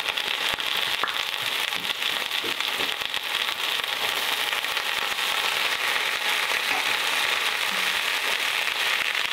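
Soy bites frying in hot oil in a frying pan: a steady sizzle full of small crackles and pops.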